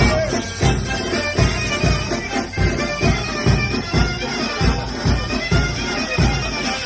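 Greek folk dance music: a reedy wind instrument plays a busy melody over a drum beating about twice a second.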